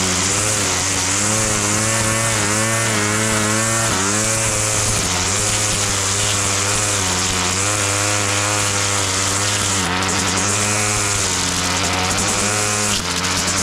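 Small petrol engine of a lawn mower running steadily, its pitch dipping and recovering about once a second as it takes the load of cutting grass.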